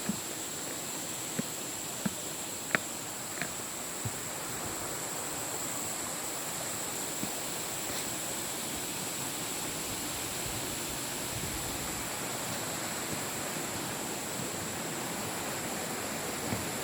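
Steady rushing of falling water from a waterfall, with a constant high-pitched whine above it and a few sharp clicks in the first few seconds.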